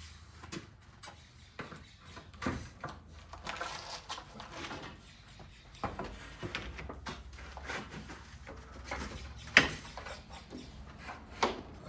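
Screen track pieces being handled and pressed into a door frame: scattered clicks, knocks and rubbing, with a sharp knock about ten seconds in and another near the end, as the joint is brought tight.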